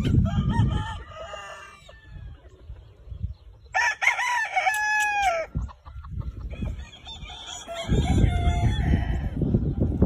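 Gamefowl roosters crowing: one crow at the start, a loud crow about four seconds in that falls in pitch at its end, and another crow after it. Low rumbling noise sits under the start and the last two seconds.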